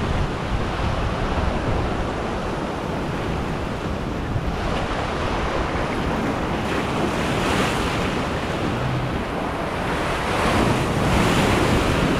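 Ocean surf churning and washing around the jetty rocks as a steady rush of foaming water, with a few louder surges of rushing water in the second half.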